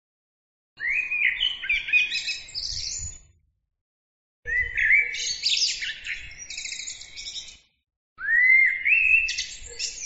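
Eurasian blackbird singing: three separate phrases a few seconds long, with silent gaps between them. Each phrase opens with low, sweeping rising notes and breaks into rapid high twittering.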